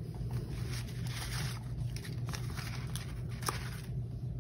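Paper sticker sheets rustling and crinkling as hands handle them and peel off a letter sticker, with a few light clicks and taps, over a steady low hum.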